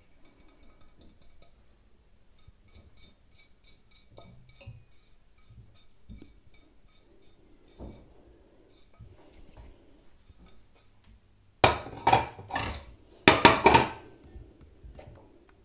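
Spices and herbs being dropped by hand from a plate into a stainless steel stockpot: faint light ticks and rustles at first, then four or five loud clinks and knocks of crockery against the steel pot about three quarters of the way through.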